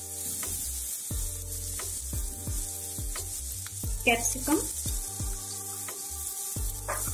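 Chopped onion, green chili and curry leaves sizzling in hot oil in a non-stick kadhai, stirred with strokes of a plastic spatula about once or twice a second. About four seconds in, chopped capsicum is tipped into the pan and stirred through the sizzle.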